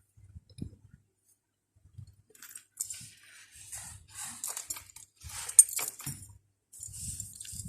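Series of short scratchy strokes on paper, likely a Chinese brush at work, starting a couple of seconds in, with faint light knocks underneath.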